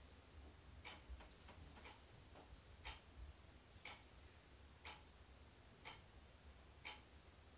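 Faint clock ticking steadily, about once a second, over a low steady hum.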